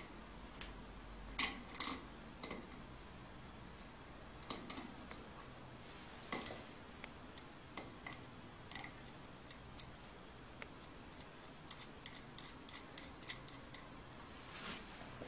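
Scattered sharp clicks and small scrapes from a clamp ring and its screw being handled and tightened around a glass condenser tube, with a quick run of clicks near the end.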